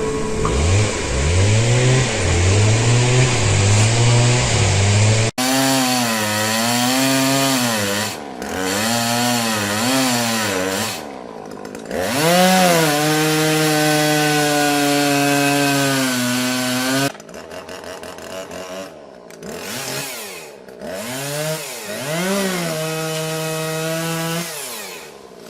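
Chainsaw engine revving up and dropping back again and again, held at high revs for several seconds midway, then quieter from about two-thirds of the way in.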